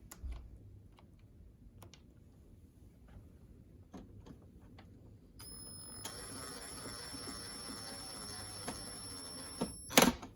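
Small cordless power screwdriver running steadily with a high whine for about four seconds, driving a screw into the plastic UV-lamp cover of an air purifier. Light clicks of handling come before it, and a sharp loud click comes as it stops.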